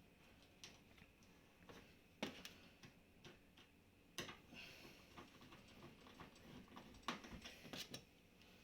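Faint, scattered clicks and light knocks from handling the dishwasher door panel and its screws. The sharpest knocks come about two and four seconds in, with a quick run of clicks near the end.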